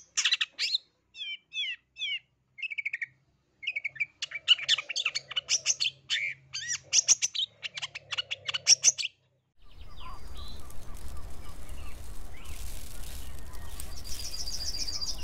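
Long-tailed shrike (cendet) singing a fast, varied song of sharp chirps, trills and gliding whistles in quick bursts with short pauses, the song packed with mimicked notes (isian). About nine seconds in the song stops and a steady hiss with a low hum takes over, with a quick run of high pulses near the end.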